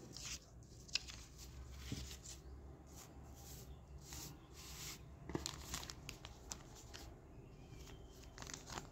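Old German paper banknotes rustling and crinkling as a hand sorts through and lifts them, in short scattered swishes with a sharper snap about a second in and another a little after five seconds.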